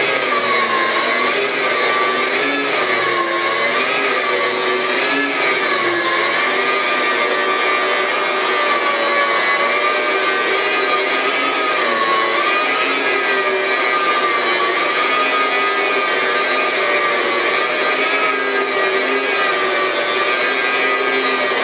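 HOST Liberator dry carpet-cleaning machine running, a steady motor whine that wavers gently in pitch as its brushes are worked through the HOST dry cleaning compound on the carpet.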